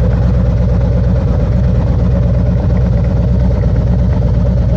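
Harley-Davidson motorcycle's V-twin engine running steadily and loudly, with a fast, even low pulse.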